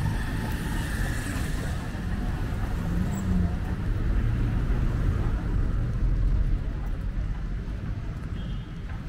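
Outdoor street ambience: a steady low rumble with a faint hiss above it.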